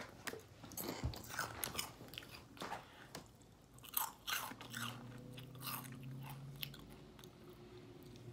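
A crunchy snack like potato chips being chewed with the mouth close to the microphone, in irregular crunches. A faint low hum comes in about halfway through.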